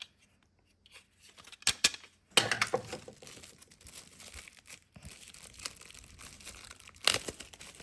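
Packaging being handled and crinkled during an unboxing, irregular rustling with sharper crackles about two seconds in and again near the end.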